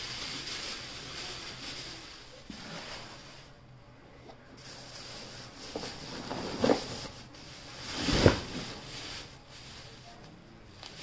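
Black polythene bags rustling and crinkling as they are handled and shifted inside a cardboard box, with two heavier thumps about two-thirds of the way through, the second one louder.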